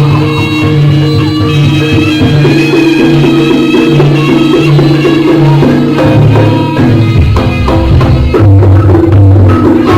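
Live Javanese jaranan gamelan music: drums and percussion under a repeating melody of held notes. The melody steps lower about seven seconds in.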